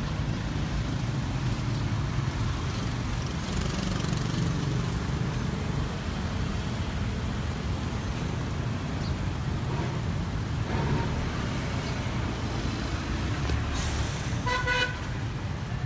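Steady low rumble of street traffic, with a short car horn toot near the end.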